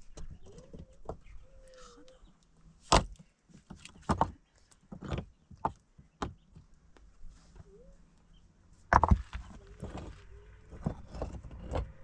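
Rough stones knocked and scraped together as they are set by hand into a dry-stone wall: a string of sharp stone-on-stone clacks, the loudest about three seconds in and again around nine seconds. A few faint short calls sound in between.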